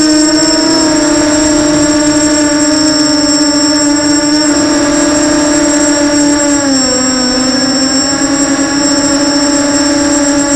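FPV quadcopter's brushless motors spinning 6045 bullnose props, a loud steady buzz with a constant high whine above it, heard from the quad's own onboard camera. The pitch dips a little about seven seconds in as the throttle eases, then holds.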